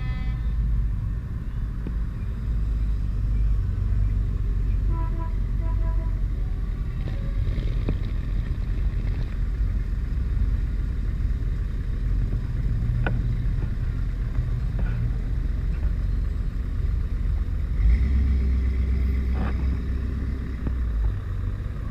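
Classic and custom cars driving slowly past one after another, a steady low engine rumble that swells louder late on as a loud car passes close.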